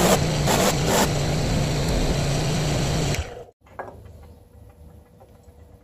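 Bench polishing motor running with a brass burner ring held against its spinning wheel: a loud steady grinding noise over a low motor hum, which cuts off suddenly after about three seconds. A light knock follows soon after, against a much quieter background.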